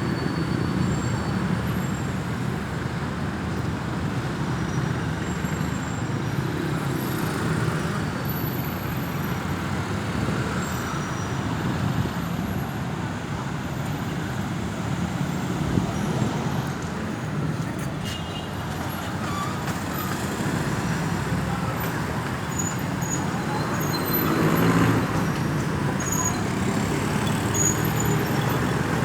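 Road traffic noise: a steady rumble of engines and tyres from passing vehicles, swelling briefly as one passes close near the end. No siren is heard.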